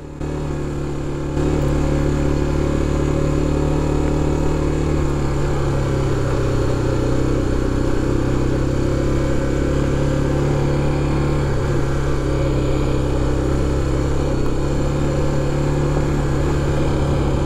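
BMW F 700 GS motorcycle's parallel-twin engine running steadily at cruising speed, with road and wind noise. It gets louder about a second in and then holds steady.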